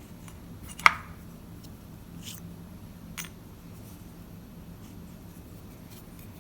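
A few sharp clicks and taps of small metal lock parts as the pin chambers of a pin-tumbler lock are taken apart; one loud click about a second in, then two softer ones and faint ticks, over a low steady hum.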